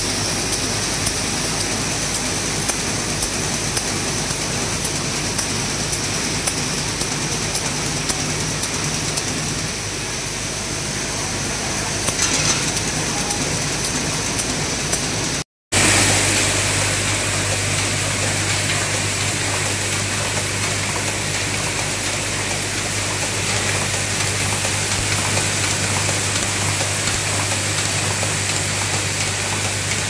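Vibratory bowl feeders running: a steady, dense rattle of small parts jittering around the bowl, first clear plastic RJ45 connector plugs, then, after a cut about halfway, metal connector shields with a stronger low hum underneath.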